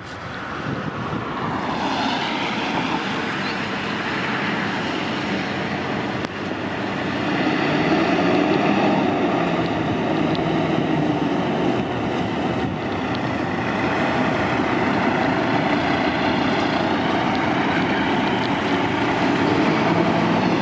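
Fire engine responding under sirens: a siren wails, rising and falling, over the noise of its heavy engine. The sound grows louder about seven seconds in.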